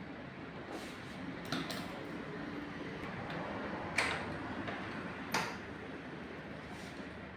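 Four sharp clicks and knocks over a steady hiss, the loudest about halfway through: bicycle parts and tools being handled during a repair.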